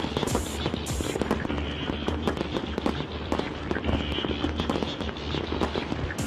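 Aerial fireworks bursting in dense, rapid volleys of bangs and crackles, with music playing underneath.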